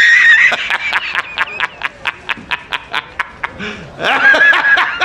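A man laughing hard: a high squealing note, then quick breathy bursts of about five a second, then squealing again about four seconds in. This is J.K. Simmons's laugh as J. Jonah Jameson, from the well-known laughing meme clip.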